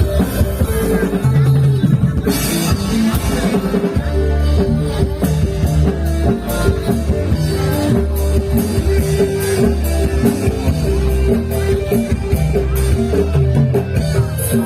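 Gamelan ensemble playing jathilan dance accompaniment: drums keep a steady beat under metallophones repeating a short melody of quick notes.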